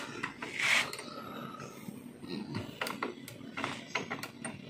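Light, scattered metallic clicks and taps as an RCB brake lever is handled and worked on its pivot at the scooter's handlebar.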